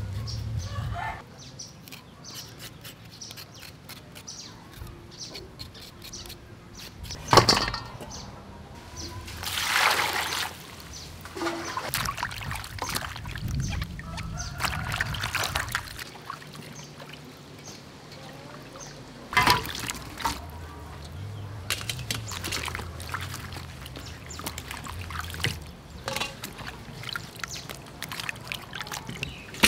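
Water sloshing and splashing in a steel bowl as vegetables are washed by hand, with a few brief louder splashes and pours.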